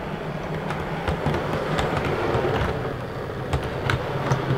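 OO gauge model Class 143 Pacer two-car unit running slowly through a three-way point. Its motor hums steadily, and its wheels click irregularly over the rail joints and point frogs, the clicks coming closer together near the end.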